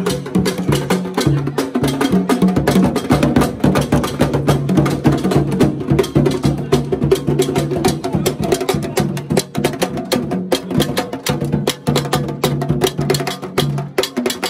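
Traditional Ghanaian drumming: a large rope-laced barrel drum and smaller drums beaten with wooden sticks and hands, playing a fast, dense rhythm with sharp stick clicks.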